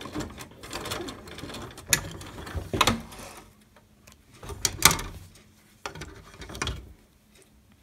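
Electric sewing machine stitching a seam through layers of fabric, running for about three seconds and then stopping. Then a few sharp clicks and snips as the work is pulled free and the threads are cut with scissors, the loudest about five seconds in.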